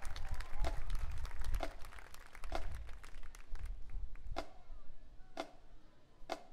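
Audience applause thinning out and dying away over the first few seconds. Through it comes a sharp tap about once a second, evenly spaced.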